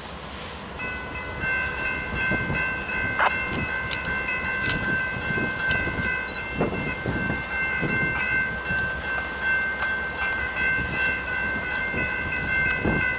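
Freight train's wheel flanges squealing against the rail as it rounds a sharp curve: a steady, high-pitched squeal of several tones that starts about a second in and holds, over the low rumble of the diesel locomotives and occasional knocks of wheels over rail joints.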